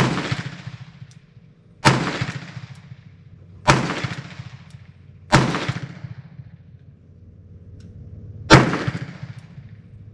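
Five shots from an Enfield No. 2 Mk I** revolver firing handloaded .38 rounds with a heavy bullet crimp, the first four about two seconds apart and the fifth after a longer pause; each shot rings out and echoes briefly.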